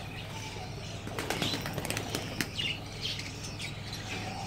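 A pigeon's wings flapping in a quick flurry of wingbeats about a second in, as it flutters off a hand.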